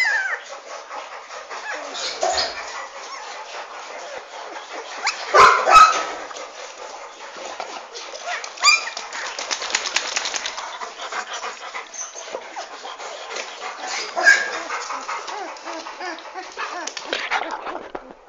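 German shepherd–Labrador cross puppies whimpering and yelping in many short, high cries, loudest about five and a half seconds in.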